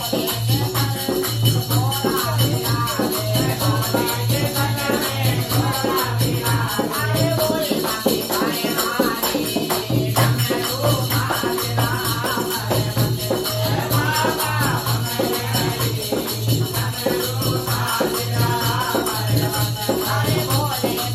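Group devotional singing of a Hindi Shiva bhajan: a lead voice with others joining in, over a dholak drum beating a steady rhythm about twice a second, with hand clapping and jingling hand percussion.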